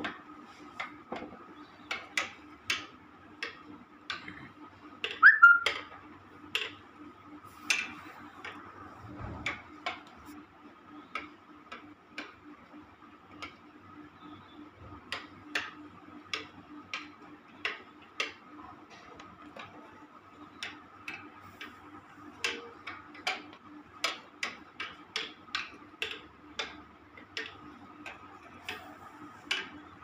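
Wire clothes hanger tapping and clicking against turned wooden spindles in light, irregular taps, about one or two a second, over a steady faint hum. About five seconds in, a short high squeak is the loudest sound.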